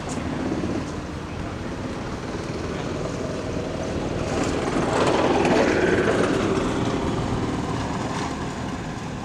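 A vehicle passing by: its engine noise grows louder to a peak about five to six seconds in, then fades away.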